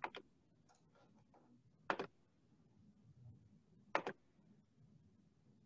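Three faint, sharp double clicks, about two seconds apart, over quiet room tone.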